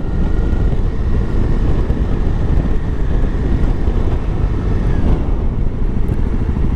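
Honda CRF250L Rally's single-cylinder engine running steadily at low road speed, mixed with wind rumble on the microphone. A faint high whine fades out about five seconds in.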